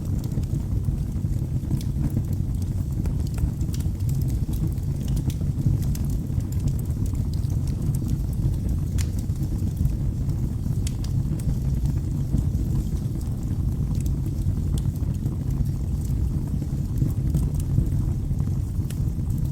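Wood fire burning in a fireplace: a steady low rumble from the flames, with frequent small crackles and pops from the burning wood.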